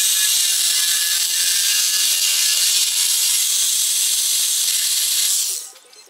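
Reciprocating saw (Sawzall) cutting through PVC pipe: a loud, steady, high-pitched buzz of the blade sawing the plastic, which stops abruptly near the end.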